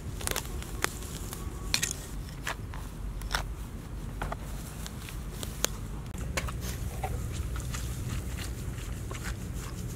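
Hands tearing tufts of grass out of dry, hard soil: scattered sharp crackles and crunches over a low steady rumble, the crackles thinning out after about six seconds.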